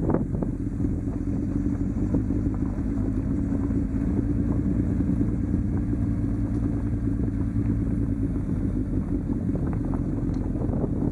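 Motorcycle engine running steadily while the bike rides down a gravel track, with the noise of the ride mixed in.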